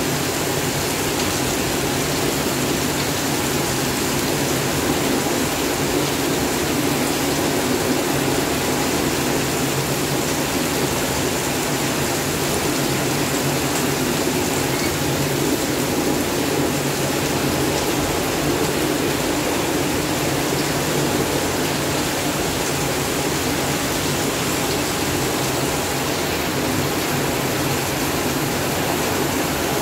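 Heavy tropical downpour falling steadily, a dense, even hiss of rain that holds at the same level throughout.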